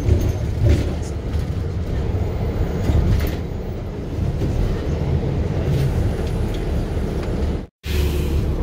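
Steady low rumble of a moving city bus heard from inside the cabin, with a few light knocks and rattles. Near the end the sound cuts out completely for an instant.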